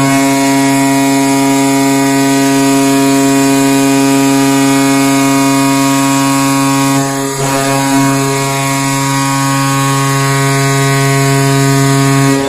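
Arena goal horn sounding one long, steady blast of about twelve seconds, with a brief waver around the middle, cutting off at the end.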